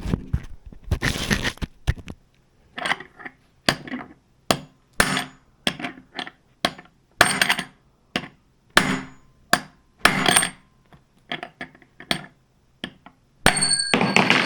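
Hammer blows, struck over and over at roughly two a second, on a tool set into a hole in an electric scooter's stem assembly. They are driving apart stem parts that are stuck as if glued together.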